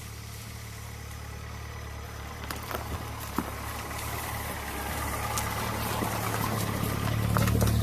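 An engine running steadily at idle, getting gradually louder, with a few light clicks over it.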